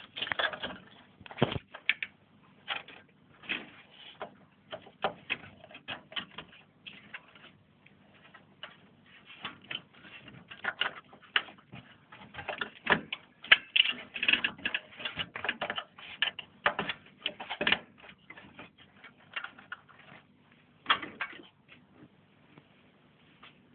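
Irregular clicking and tapping of hard computer parts being handled and fitted, in uneven clusters with a few louder knocks.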